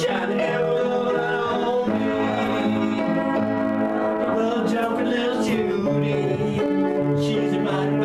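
Electronic keyboard playing held chords that change every second or two, with a man singing along.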